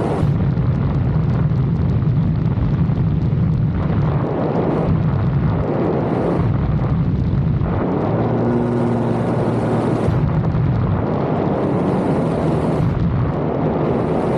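Lexus IS 250 on the move: a steady, loud rumble of engine and road noise. About eight seconds in, the 2.5-litre V6's note stands out as a clear hum for a couple of seconds.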